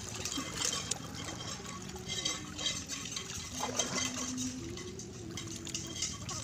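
Water dripping and splashing off a nylon gill net as it is hauled hand over hand out of a lake into a wooden boat.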